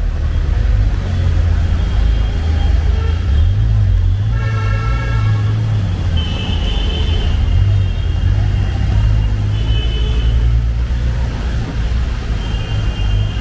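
Busy city road traffic going past with a steady deep rumble. Vehicle horns sound several times, each for about a second.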